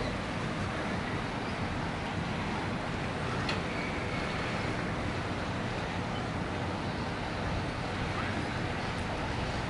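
Steady rumble and hiss of harbour and city ambience, with faint chirps from rainbow lorikeets and one sharp click about three and a half seconds in.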